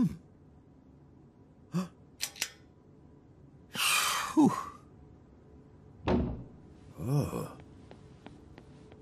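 Sparse cartoon sound effects with non-word vocal sounds: a thud at the very start, a few light clicks around two seconds in, a breathy sigh about four seconds in, then short grunts around six and seven seconds, with quiet between them.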